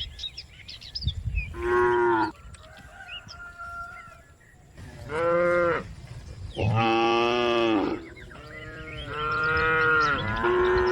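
Cows mooing: about four long, loud calls one after another, the last two overlapping near the end.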